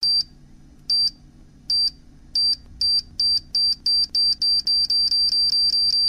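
Electronic beeping sound effect: a short high beep repeating and speeding up from about one a second to four or five a second, like a countdown timer.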